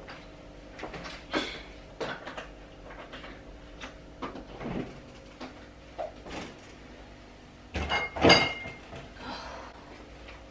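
Kitchen handling sounds: a fridge door and cupboards being opened and shut, with a series of knocks and clicks. About eight seconds in comes a louder clatter with a short ringing clink.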